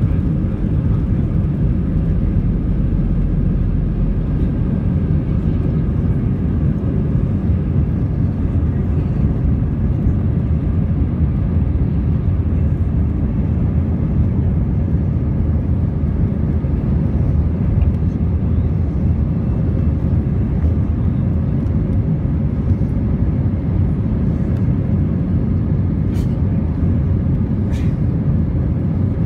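Airbus A320 jet engines at takeoff thrust heard from inside the cabin: a steady, loud low rumble through the end of the takeoff roll, lift-off and initial climb.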